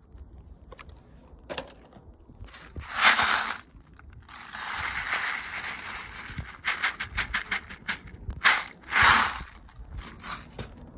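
Close handling noise: a small plastic container of airsoft BB pellets being shaken and handled, with a quick run of clicking rattles and several loud rustling bursts.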